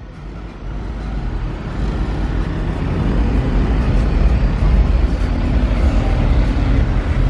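A car's engine rumbling low as it rolls slowly past close by, growing louder over the first few seconds and then holding steady.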